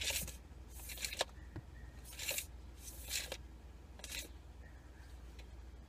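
Tape measure blade sliding against its case in five short scraping bursts about a second apart, with a sharp click a little over a second in.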